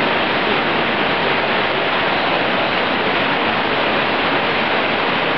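Steady rush of water from small artificial waterfalls running down a planted garden wall.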